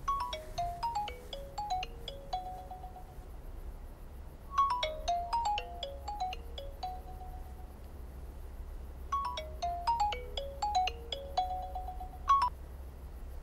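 Mobile phone ringtone: a short melody of quick notes stepping down in pitch and ending on a held note, played three times about four and a half seconds apart, the sign of an incoming call.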